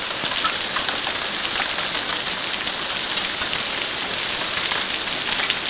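Hailstorm: hail falling steadily, a dense hiss of hailstones hitting the ground, with many small sharp ticks of single stones striking.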